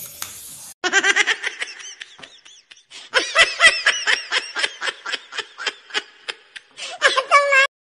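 High-pitched laughter in rapid bursts of short, rising-and-falling notes, ending in a longer held squeal.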